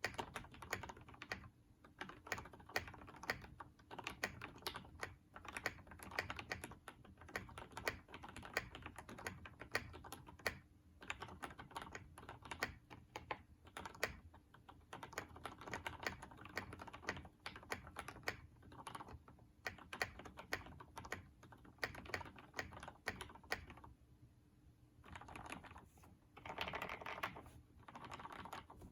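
Typing on an NCR80 mechanical keyboard with lubed and filmed Hyperglide Black linear switches and PBT keycaps: irregular runs of keystrokes broken by short pauses, with a faster, louder run near the end.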